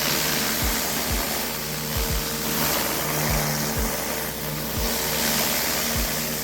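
Pressure washer running with a steady hum while its turbo nozzle sprays water onto concrete in a loud, even hiss. Short low thumps come every half second to a second.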